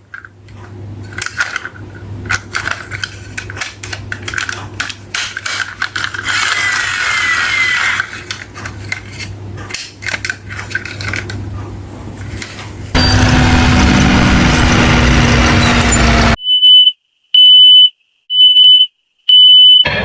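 Rapid irregular clicks and clatters of hard toy pieces over a steady low hum. These give way to a loud rushing noise for about three seconds, then four short high electronic beeps about a second apart.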